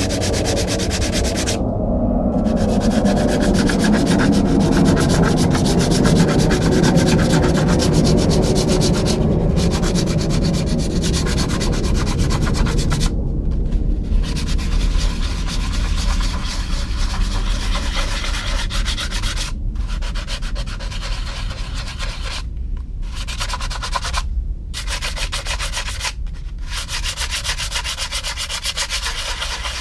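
Hand sanding with 80-grit sandpaper, rubbing filler down over a plastic-to-balsa joint on a model airplane fuselage. It is a continuous rapid back-and-forth scratching that stops briefly several times.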